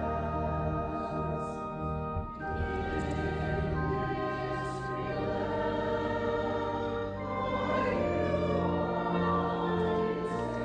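Voices singing together in chorus, holding long sustained chords of a church hymn.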